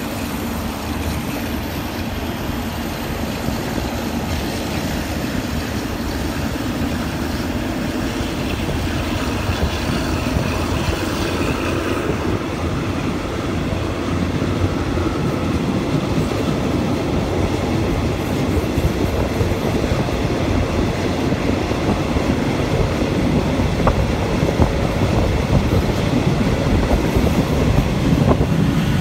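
Diesel-hauled passenger train moving off from a station and gathering speed, heard from a carriage window: a steady rumble of the coaches and wheels on the rails that grows gradually louder, with a few wheel clicks over rail joints near the end.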